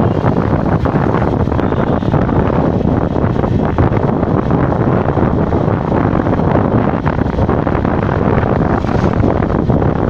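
Wind buffeting the microphone of a camera carried in a moving vehicle on the road, a loud steady rush with the vehicle's running and road noise mixed in.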